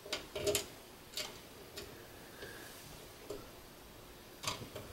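Several light clicks and ticks, spaced unevenly, from wire ends being fitted into the small plug-in screw terminal blocks on a stepper motor driver.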